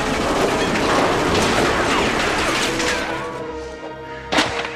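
Machine-gun fire from a film sound effect: a rapid, continuous burst that dies away about three seconds in, then one sharp bang near the end.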